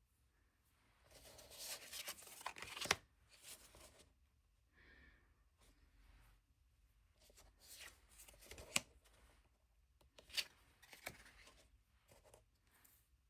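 Tarot cards being handled: soft sliding and rustling swishes of card stock, with a few sharp clicks as card edges snap against each other.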